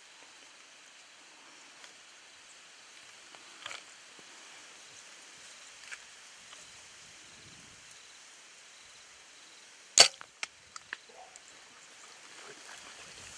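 A compound bow shot about ten seconds in: one sharp, loud snap of the released string and limbs, followed by a few quieter clicks within the next second. Before it there is only a faint steady outdoor hiss with a couple of soft ticks.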